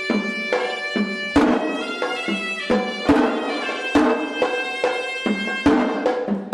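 Sri Lankan hewisi ritual music: a shrill double-reed pipe (horanewa) plays a sustained melody over sharp drum strokes that come roughly twice a second.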